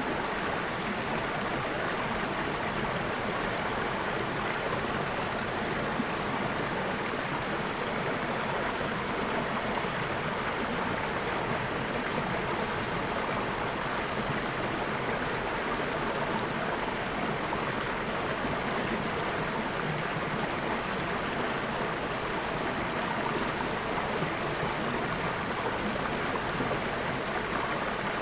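Water flowing steadily, a stream running with an even rushing sound.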